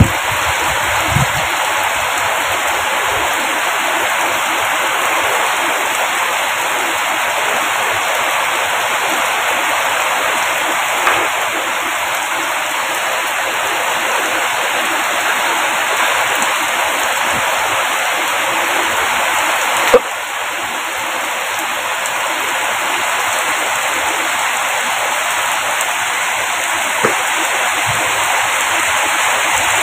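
Heavy downpour of rain falling on a paved lane, a steady, even hiss of pouring water. A single sharp tap sounds about two-thirds of the way through.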